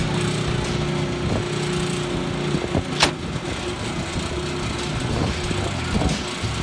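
Electric-hydraulic pump of a dump trailer running steadily as the loaded bed tips up, with soil sliding out the back. A single sharp bang about three seconds in.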